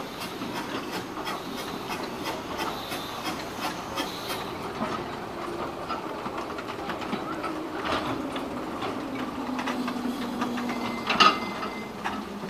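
Peckett tank steam locomotive 'Harrogate' running past on 2 ft narrow-gauge track, with steam hissing and wheels clicking along the rails. A short loud knock about eleven seconds in.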